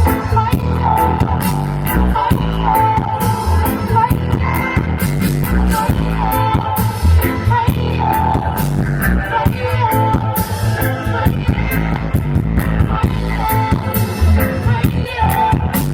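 Live reggae band playing an instrumental passage: a steady bass-and-drum groove with a short melodic phrase repeating over it.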